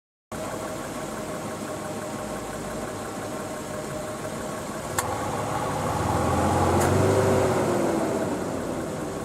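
Nissan Elgrand E51 idling with its air conditioning on, a steady mechanical running sound. A sharp click comes about five seconds in and another at about seven seconds. Between them a deeper hum swells and a tone rises and then falls, fitting the compressor's switch cutting in and out repeatedly, the fault being shown.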